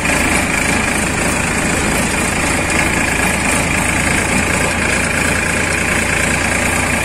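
Powertrac Euro 50 tractor's three-cylinder diesel engine running steadily at low speed, heard from the driver's seat.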